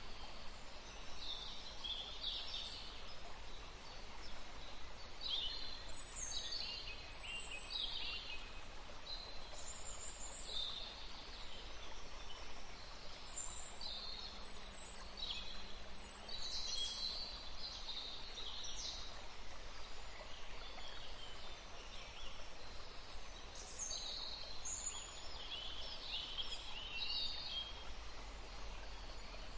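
Small birds chirping and singing in short, high phrases, scattered throughout, over a steady background hiss of outdoor ambience.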